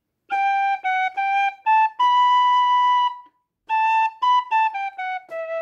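Six-hole Moldovan wooden fluier in D playing the opening of a Moldovan sârbă slowly, for learning. A phrase of short notes climbs to a long held note. After a brief breath, a falling run ends on a held low note.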